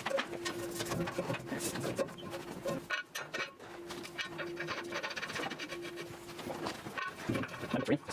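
Irregular rubbing and scraping from hand work, with a faint steady hum that drops out for a while in the middle and again near the end.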